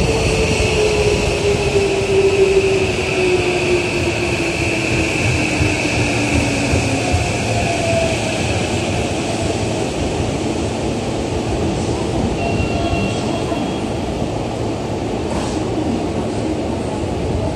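Tokyo Metro 15000 series electric train arriving and braking to a stop. Its traction motors whine, falling steadily in pitch over the first several seconds as it slows, over a steady rumble of wheels on rail.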